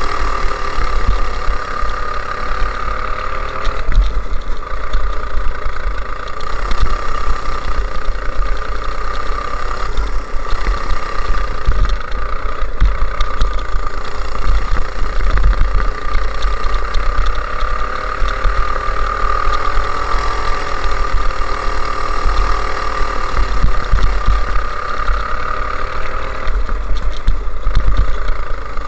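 Go-kart engine running at speed, heard from the driver's seat, its pitch rising and falling a little through the corners, over a heavy low rumble of wind and chassis vibration.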